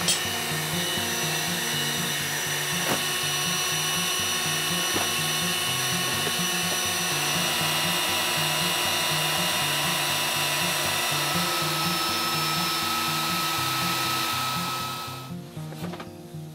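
Electric air pump running steadily while inflating an air sofa, then switching off about fifteen seconds in. Background music plays underneath.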